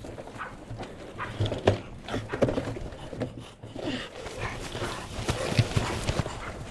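Handling noise on a hang glider's mounted camera: irregular knocks, rustling and rumble as the wing is handled on the ground, with a hand grabbing the camera near the end.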